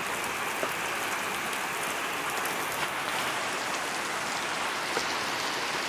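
Heavy rain pouring steadily, a dense even hiss of drops on the street with a few faint ticks.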